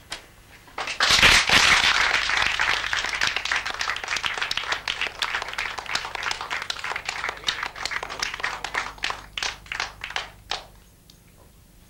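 Small audience applauding, starting suddenly about a second in, then thinning to a few scattered claps that stop near the end.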